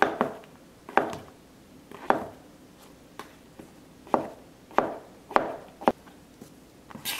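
Kitchen knife slicing a king oyster mushroom into strips on a cutting board: a sharp knock of the blade on the board with each cut, about once a second, with a pause of about two seconds near the middle.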